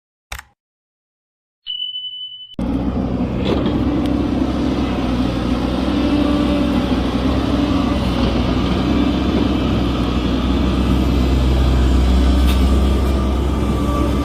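Hitachi hydraulic excavator's diesel engine running steadily, cutting in suddenly about two and a half seconds in. Just before it, a short high steady beep sounds.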